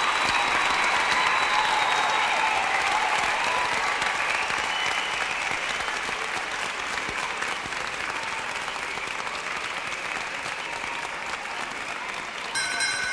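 Large stadium crowd applauding and cheering, slowly dying down. Near the end a brief high steady tone comes in.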